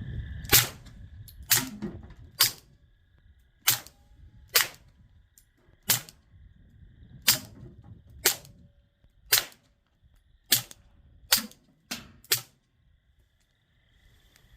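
Suppressed 9mm Glock 19X pistol firing a string of about a dozen shots, roughly one a second, with the last few coming quicker.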